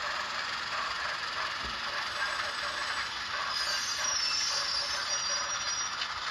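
Rapido 44-tonner model diesel locomotive's ESU v5 sound decoder playing its running sounds through a small drop-in speaker while the model moves: a steady hissing engine-and-rail sound. Faint high squealing tones come in about three and a half seconds in. The decoder's unidentified sound slot 30 effect, which only plays while the engine moves, is switched on.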